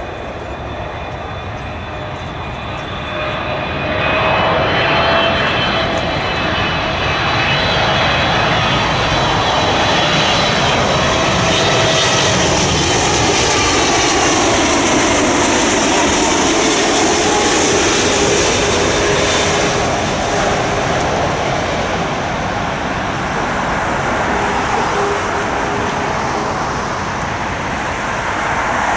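Heavy jet airliner on final approach, passing low overhead to land: the engine whine and jet noise swell about four seconds in and stay loud, and the engine tones drop in pitch as it goes past, easing slightly near the end.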